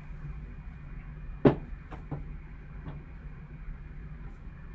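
A sealed cardboard trading-card box handled in gloved hands: one sharp knock about a second and a half in, then a few lighter taps, over a steady low hum.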